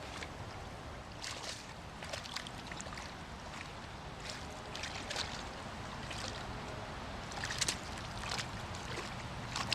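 A dog splashing and wading through shallow water and mud, with irregular splashes every half second or so.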